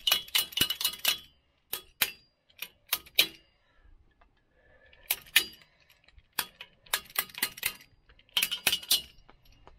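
A hand wrench tightening a nut on a bolt through a steel light bracket: sharp metallic clicks and clinks in quick bursts, five runs of several clicks each with short pauses between.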